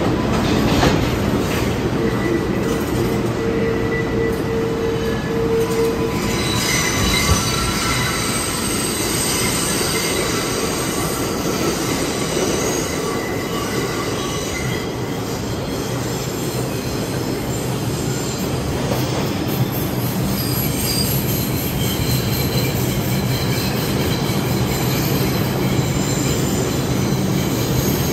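New York City subway train of R142A cars running along a sharply curved station track with a steady rumble. The wheels squeal high against the rails with several shrill tones, starting about six seconds in and continuing. In the first few seconds there is a steady mid-pitched whine.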